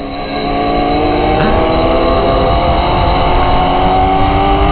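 Motorcycle engine running on the move, its pitch rising slowly as it speeds up, with a steady high whine above it and wind rumble on the microphone.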